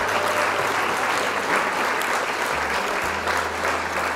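A crowd applauding, steady dense clapping, with a low steady bass tone underneath.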